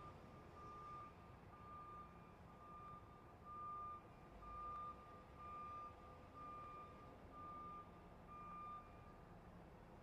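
Faint truck reversing alarm: a single steady tone beeping about once a second, stopping near the end.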